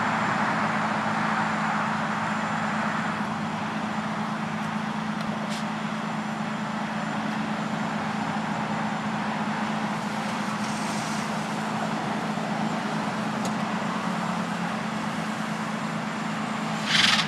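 Tow truck engine running steadily with an even low hum. A short hiss comes near the end.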